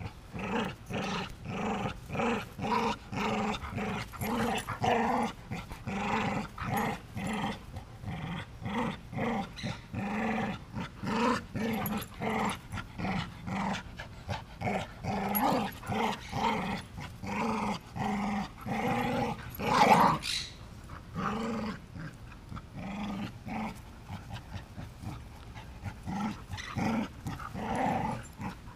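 Two dogs growling in play while tugging on a rope toy, short growls following each other about two to three times a second. One louder, sharper sound about twenty seconds in.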